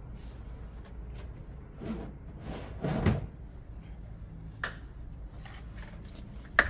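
Handling noises: a dull knock about three seconds in, then two short sharp clicks, like hard objects or a case being moved and set down.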